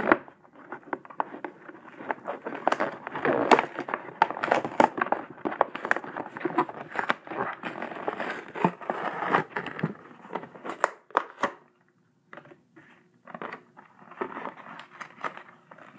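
Toy truck packaging being opened and handled by hand: irregular crinkling, rustling and clicking of cardboard and plastic, dense for most of the stretch, with a short pause about twelve seconds in before sparser handling noises.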